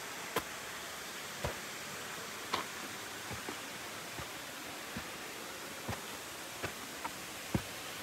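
Steady rush of a waterfall, with short sharp knocks at irregular intervals, about one a second.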